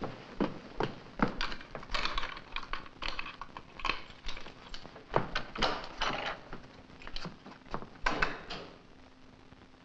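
Hurried footsteps on a wooden floor and a string of irregular knocks and clatters as dishes and objects are handled and a wooden cabin door is pulled open; the clatter stops shortly before the end, leaving a faint steady hum on the old film soundtrack.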